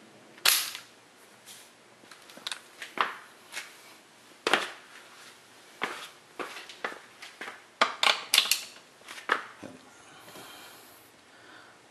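Irregular sharp metal clicks and clinks as a socket is handled, fitted onto a half-inch torque wrench and set over a wheel lug nut, busiest about eight seconds in.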